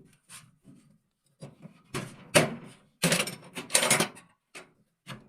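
Knocks, clicks and scraping from hands and tools working on washing machine parts, in short irregular bursts. The loudest clatter comes from about two to four seconds in.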